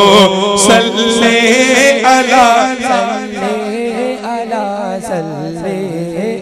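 Unaccompanied male voices singing a naat, a Punjabi devotional song: a wavering, drawn-out melodic line over a steady low held note.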